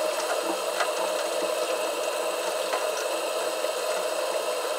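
Kitchen faucet running steadily into a stainless steel sink, an even rush of water, with a couple of faint clicks.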